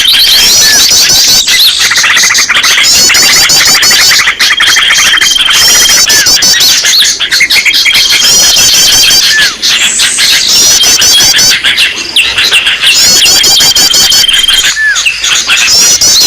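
Bird-lure recording of many small songbirds calling at once: dense high chirps and rapid trills, with a steady high whistled note that comes back about every four seconds as the mix repeats.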